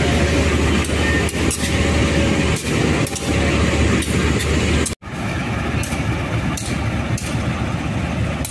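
Diesel locomotive engine idling with a steady low hum and scattered short knocks. About five seconds in the sound cuts off abruptly, then resumes as thinner engine noise without the low hum.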